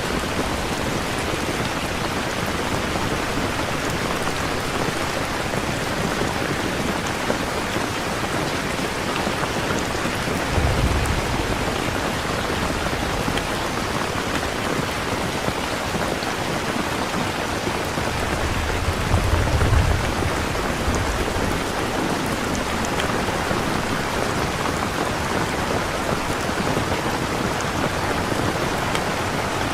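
Steady rain falling, with two low rumbles of thunder, one about ten seconds in and a longer one near twenty seconds.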